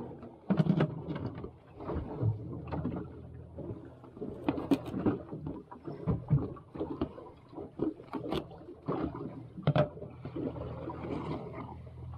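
Irregular knocks, taps and clatter from a plastic bucket lid and thawed herring being handled and set down on a fiberglass boat deck, then a knife cutting the bait on the lid, over a low steady hum.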